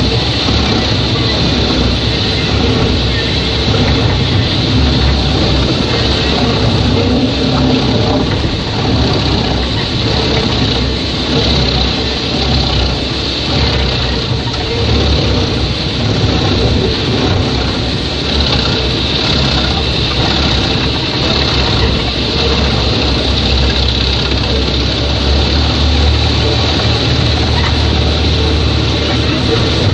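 Mus-Max Terminator 10 wood chipper running steadily at a constant loud level, its engine drone and rotor noise unbroken.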